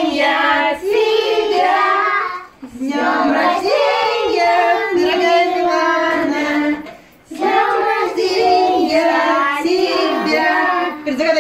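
A group of children and adults singing a birthday song together around a cake with a lit candle, in phrases broken by two short pauses.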